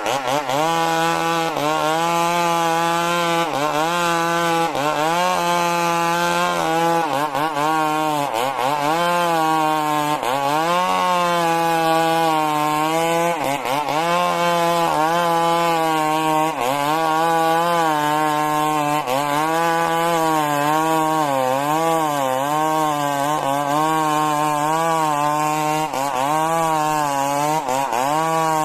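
Stihl MS 382 two-stroke chainsaw running at full throttle while ripping a log lengthwise, its engine pitch dipping briefly every second or two as the chain loads up in the cut.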